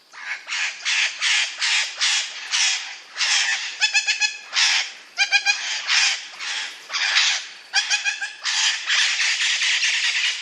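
A parrot screeching in a rapid run of harsh calls, about three a second, running together into one unbroken screech over the last couple of seconds.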